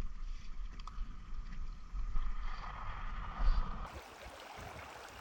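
Rushing creek water with a low rumble of wind on the microphone. About four seconds in, the sound changes abruptly to a quieter, steady hiss of flowing water.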